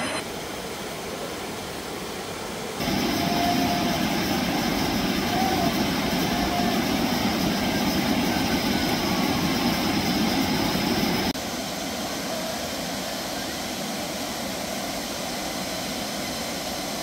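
Mountain river rushing over boulders through rapids, a steady noise of water. It gets louder about three seconds in, as the water is heard from closer by, and drops back about eleven seconds in.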